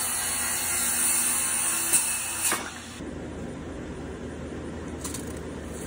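Corded circular saw running and cutting through a pine board, then stopping about two and a half seconds in. A quieter steady hiss follows.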